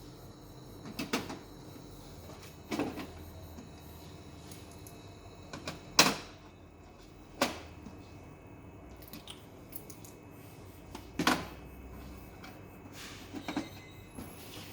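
Scattered knocks and clacks from photocopier parts and panels being handled, about six over the stretch, the loudest about six seconds in.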